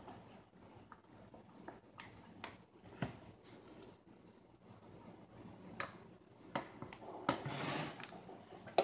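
Silicone spatula stirring thick soap batter in a small stainless steel pot: soft scrapes and light knocks against the metal every half second or so, with a longer stretch of scraping near the end.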